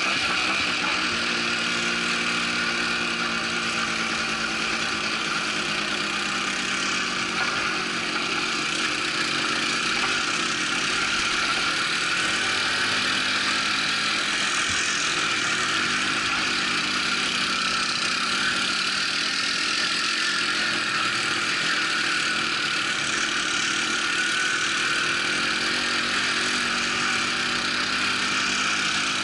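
Quad bike engine running steadily under way on a rough dirt track, heard from on board the moving bike.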